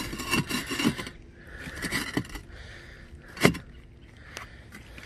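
Loose concrete roof tiles clacking and scraping as they are walked on, in short clusters, with one louder knock about three and a half seconds in. The tiles shift underfoot because they sit much looser than they should.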